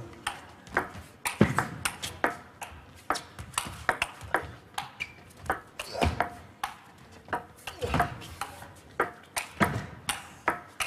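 A long table tennis rally: the ball clicks sharply off the players' rubber-faced bats and bounces on the table, about two crisp knocks a second.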